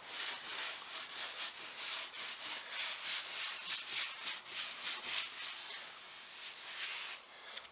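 A rag soaked in chemical stripper is rubbed back and forth over a cherry wood table top, wiping up softened lacquer. Quick repeated hissing strokes, about three a second, fade out near the end.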